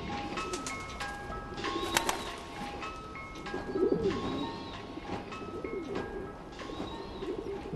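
Pigeons cooing over a soft musical loop, a short stepped phrase of held notes that repeats about every two seconds.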